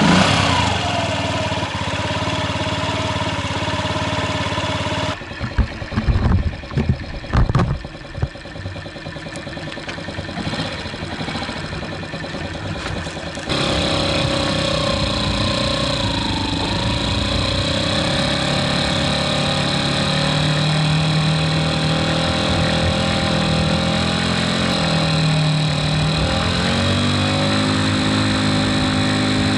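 Honda Ruckus scooter's 49cc four-stroke single running, freshly back to life after a clogged carburetor was cleaned and rejetted. A few seconds in there is a stretch of loud thumps and knocks. About halfway through, the engine comes back louder as the scooter is ridden, its pitch rising and falling with the throttle.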